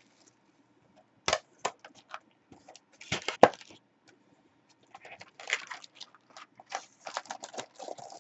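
Cardboard trading-card box being handled and opened: a single knock about a second in, then scraping and rustling with sharp clicks, the loudest about three and a half seconds in, and more rustling near the end as the packs are lifted out.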